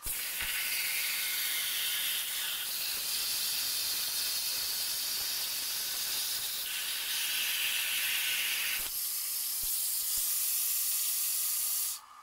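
CNC plasma cutter torch cutting through 3 mm steel plate: a steady, hard hiss that starts suddenly and stops abruptly near the end as the cut finishes, its pitch shifting a few times along the way.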